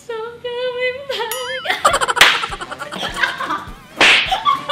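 A woman's voice sings one long held note that wobbles upward and breaks off. Then several women burst out laughing, with a sharp slap about two seconds in and a louder shriek of laughter near the end.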